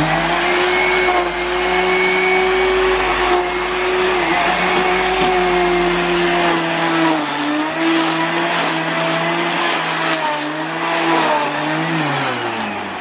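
Corded electric grass trimmer running as it cuts grass: a steady motor whine with a rushing cutting noise. It spins up at the start, its pitch dips a few times in the second half, and it winds down near the end.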